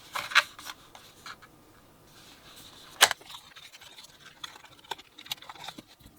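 Hands handling an earbuds box and its packaging: clicks, taps and light rustling. A cluster of clicks comes at the start, a single sharp click about three seconds in is the loudest, and lighter clicks and taps follow.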